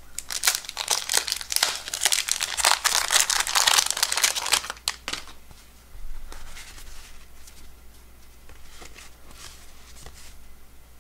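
1992 Topps baseball card wax pack being torn open, its wrapper crinkling and ripping loudly for about five seconds. After that, quieter rustles and light clicks as the cards are handled and fanned.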